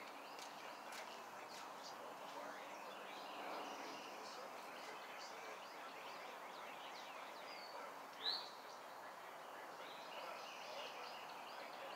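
Faint outdoor ambience with birds chirping now and then; one clearer chirp about eight seconds in.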